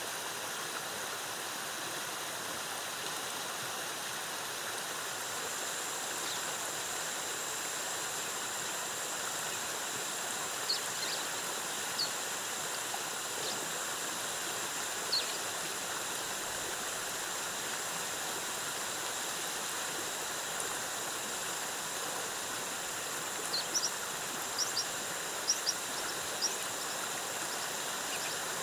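Steady rush of a jungle waterfall's falling water. A thin, high, steady whine joins about five seconds in, and short high chirps come a few at a time in the middle and again near the end.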